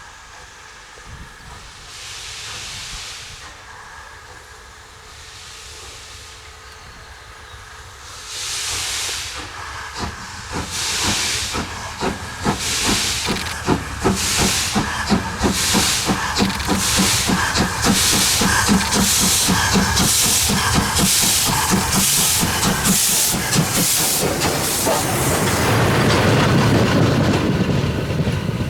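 DB class 23 steam locomotive 23 042 starting away under load. Its exhaust beats come slowly and widely spaced at first, then quicken and grow louder as the engine picks up speed. Near the end they merge into a continuous rush with a low rumble of the train.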